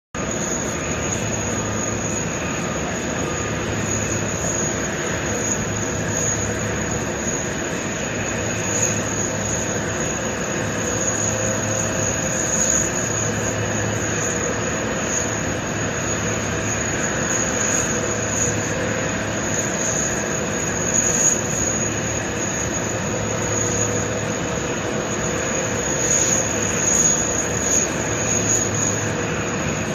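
Steady jet-turbine drone and spray hiss as a boom de-icing truck sprays steaming fluid over an airliner. A low hum beneath it swells and fades every couple of seconds.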